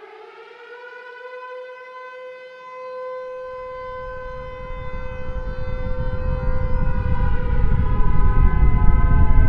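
Civil defense air-raid siren sounding a steady wail after a rising start. A low rumble builds beneath it from about a third of the way in, growing steadily louder.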